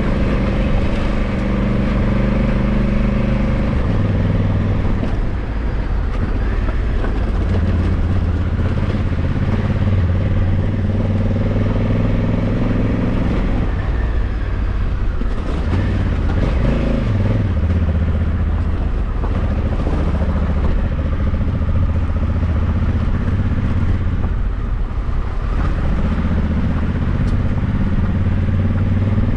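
Honda Africa Twin 1100's parallel-twin engine running under way, its note shifting with throttle and gear changes. It falls away between about 13 and 16 seconds in and climbs again just after.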